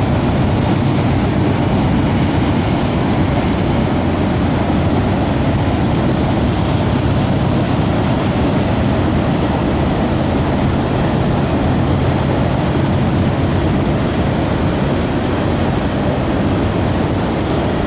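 CSX mixed freight train rolling past, a steady low rumble with a faint hum that comes and goes.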